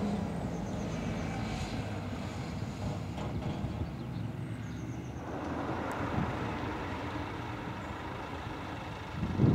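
Kubota utility vehicle towing a trailer driving past, its engine running over tyre noise. Near the end a tractor engine surges louder as it pulls away.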